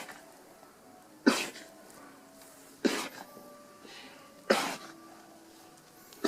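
An alpaca in a fit of repeated sneezes: three sharp sneezes about a second and a half apart, with another starting at the very end.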